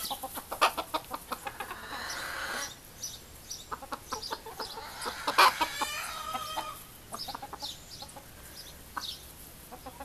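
Hen and young cockerels clucking in short repeated notes, with a louder, drawn-out call lasting about a second at about five and a half seconds in.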